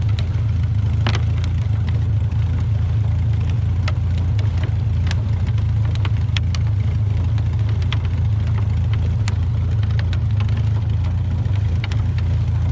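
Fishing boat's engine running steadily at low speed while crab nets are paid out, with scattered light clicks and knocks on top.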